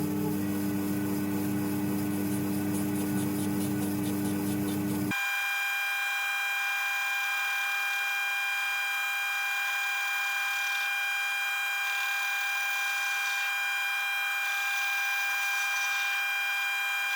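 Cowells 90ME micro lathe running with a steady whine, with a scraping, rubbing sound of metal being worked. About five seconds in the sound changes abruptly to a thinner, higher whine.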